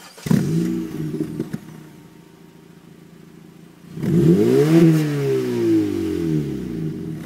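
A 2012 Honda Civic LX's 1.8-litre four-cylinder, breathing through a 2009 Civic Si exhaust, starts about a third of a second in with a brief flare of revs and settles to idle. About four seconds in it is revved once: the pitch climbs for under a second, then falls back slowly to idle.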